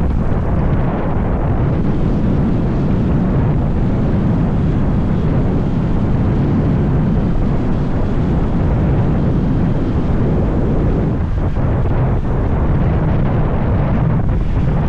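Loud, steady wind buffeting on the microphone of a camera riding on a moving motorcycle, with rumbling road and engine noise beneath it.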